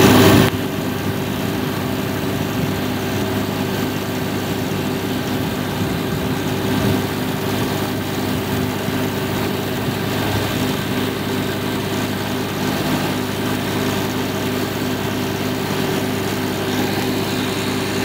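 An engine idling steadily, with a brief louder noise at the very start.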